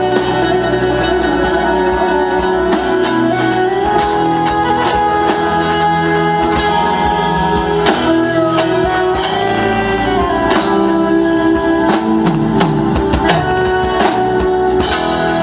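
Live band music: a harmonica played into a vocal microphone holds and bends long notes over a semi-hollow electric guitar.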